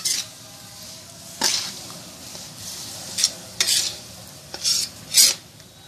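A spatula stirring and scraping chunks of jaggery in water in a pan, about six irregular scrapes against the pan over a faint steady sizzle as the jaggery melts into syrup on the heat.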